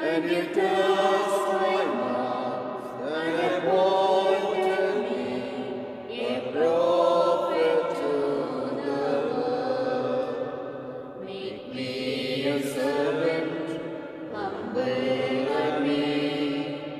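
A slow devotional hymn, sung in long held phrases that swell and fade every two to three seconds.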